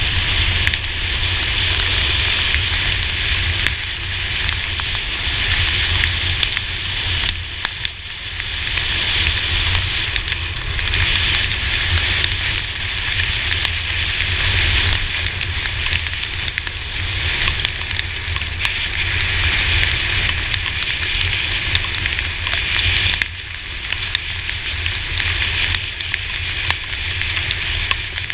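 Steady hiss of heavy rain and tyre spray on a wet road over a low wind rumble, heard from a camera on a moving Yamaha T-Max 530 scooter. The hiss dips briefly about eight seconds in and again near the end.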